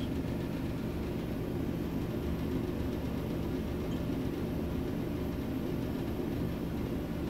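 Steady low background rumble and hum, even throughout with no distinct events.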